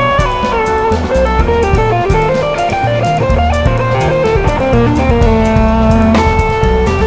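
Electric guitar solo in a jazz-fusion track: fast runs of single notes over bass and a drum kit.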